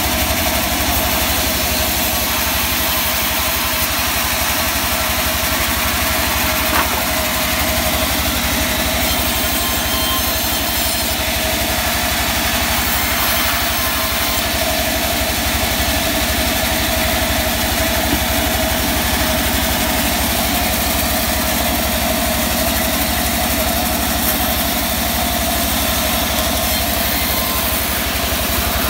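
Vertical sawmill band saw running steadily while cutting mahogany, its drive giving an even, engine-like drone.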